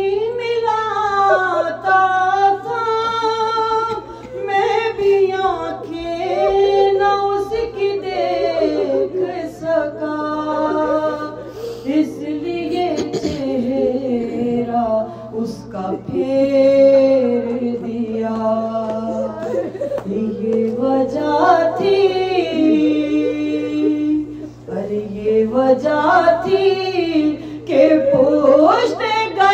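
A woman's voice chanting a soz salam, an Urdu elegy for Imam Hussain, in long held, gliding sung phrases with short breaks between lines, over a steady low hum.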